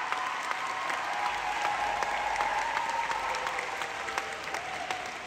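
Crowd applauding, the clapping slowly dying down.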